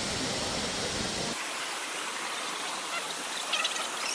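Waterfall's falling water making a steady rushing noise. About a second in the sound changes abruptly and loses its low rumble. Faint scattered sharper sounds come in near the end.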